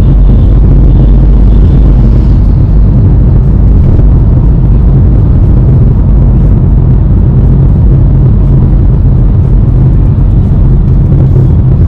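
Cabin noise inside a Honda Elevate on the move: a loud, steady low rumble of road, tyres and engine, with no sharp events.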